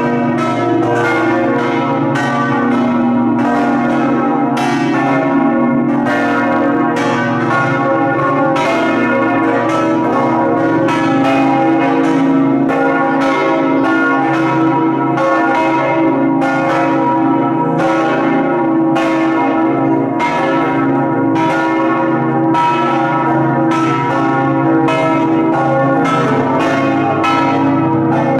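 The full peal of St Mark's Campanile's bronze church bells ringing together, swung in the traditional Venetian 'a slancio' way, with each clapper flying up to strike the upper side of its swinging bell. Overlapping, irregular strokes come about once or twice a second over a continuous ringing hum, loud and close-up inside the bell chamber.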